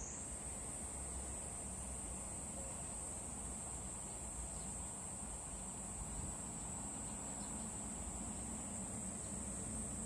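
A cicada singing one unbroken, high-pitched buzz that steps up slightly in pitch at the very start, then holds steady.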